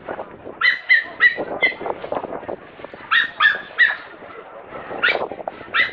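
Small dog yipping in short high-pitched runs of three or four yips, then single yips near the end.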